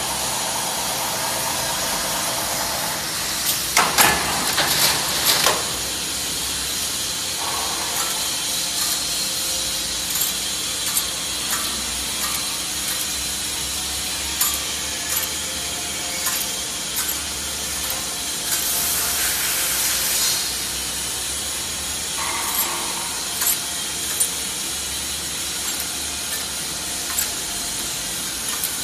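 Bonnell spring assembly machine running, lacing coil springs together: a steady hiss with scattered metallic clicks and clacks. A cluster of sharp knocks comes about four to five seconds in, and a louder hiss lasting about two seconds comes around two-thirds of the way through.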